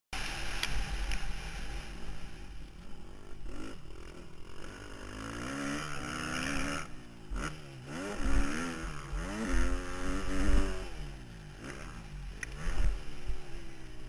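Husqvarna TC 250 four-stroke single-cylinder motocross engine, heard close from onboard, revving up and dropping back again and again as the rider accelerates and shifts around the track, over a low rumble from the ride.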